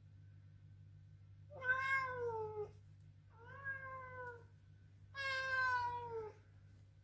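Ragdoll cat meowing three times, each meow about a second long and sliding down in pitch at its end.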